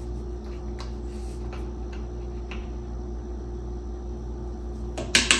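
Quiet room hum with a few faint ticks of a metal measuring spoon handling dried thyme, then a quick run of sharp metallic clinks near the end as the spoon knocks against the stockpot.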